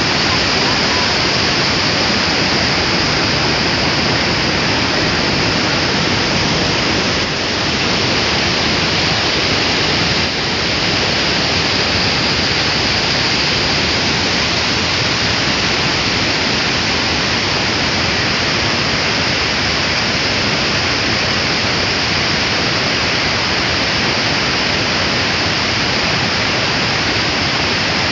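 Waterfall: water pouring and splashing in a loud, steady rush.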